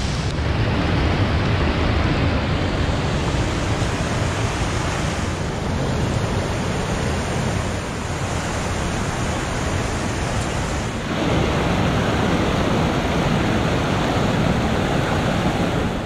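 Steady rushing of a waterfall and its rapids, a dense even roar of water. Its tone shifts twice, about five and eleven seconds in.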